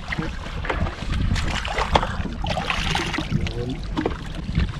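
Sea water sloshing and splashing around a person wading chest-deep, with wind rumbling on the microphone and a few light knocks.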